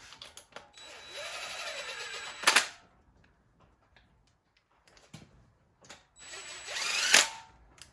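A DeWalt cordless power driver runs oil pump bolts into an engine block in two bursts, the first lasting a second and a half and the second about a second. Each burst whines up in pitch and ends in a sharp snap as the bolt seats.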